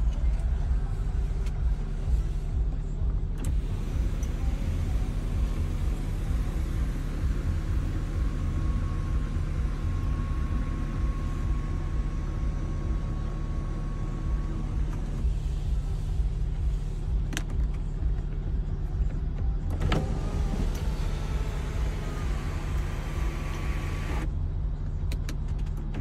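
Electric sunroof of a Seat Leon Cupra running on its motor: a thin steady whine for several seconds, a click, then another whine as the glass panel opens. Under it the car's engine idles with a steady low hum.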